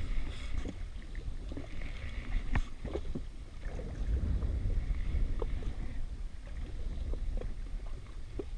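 Wind buffeting the microphone and water slapping around a jet ski on the open sea, with scattered light clicks and knocks as a fishing reel is wound in against a hooked fish.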